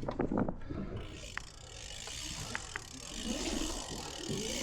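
BMX bike riding through a modular pump track: the rear hub ratchet clicks in short runs as the rider coasts, over a rising rush of tyre and wind noise toward the end.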